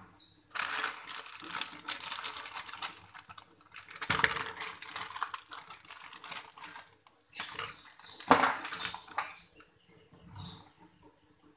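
Hot oil sizzling and spitting in a frying pan as food fries, in uneven crackling bursts with louder pops about 4 and 8 seconds in.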